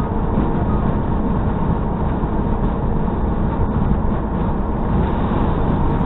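Tractor-trailer cab at cruising speed: a loud, steady drone of the diesel engine, tyres and wind, with a faint hum held underneath.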